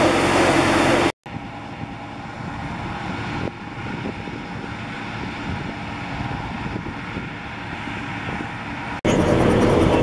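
Claas Lexion combine harvester running loud and steady while harvesting oilseed rape. About a second in, this cuts to a quieter, more distant engine hum. The loud combine noise returns suddenly near the end.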